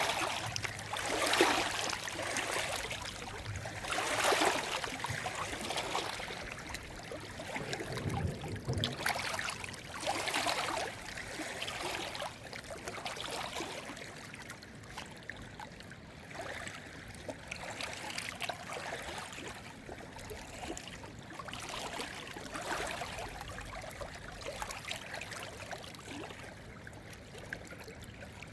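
Running water, a stream trickling and gurgling, with louder surges every few seconds in the first ten seconds before it settles into a steadier flow.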